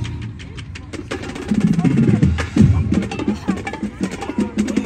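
Marching band playing live, with quick, sharp percussion strikes over low brass notes; it gets louder about a second and a half in.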